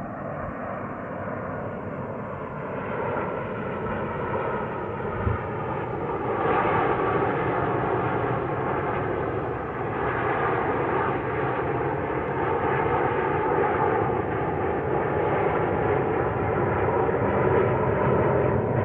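An aircraft flying over, a steady engine drone that grows louder over the first several seconds and then holds, its pitch slowly falling.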